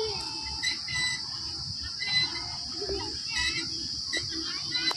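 Steady high-pitched buzz of insects, with short bird chirps scattered over it and a cluster of chirps about three and a half seconds in.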